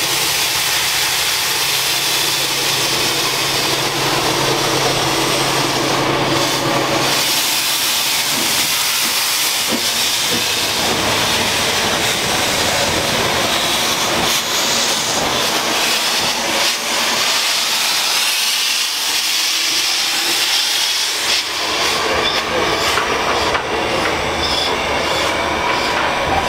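Small steam tank locomotive hissing loudly as it moves off, steam blowing from its cylinder drain cocks around the wheels.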